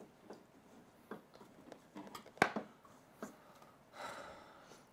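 Light kitchen clatter: scattered clicks and knocks of utensils and dishes on a counter, with one sharp knock about halfway through and a brief soft hiss near the end.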